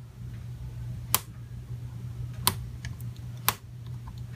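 Sharp clicks of a fingernail flicking at the small latch of a laptop keyboard's ribbon-cable connector in repeated attempts to flip it open. There are three louder clicks about a second apart with fainter ticks between them, over a low steady hum.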